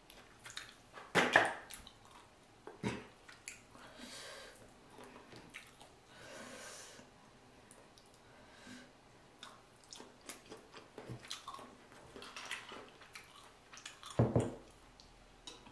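Close-miked eating of a saucy seafood boil: wet squishes, small clicks of shells and chewing, with two louder clacks about a second in and near the end.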